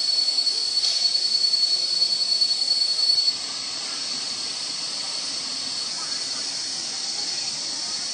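Waterfall water rushing as a steady, even hiss. A thin, steady high-pitched tone rides over it and cuts off about three seconds in.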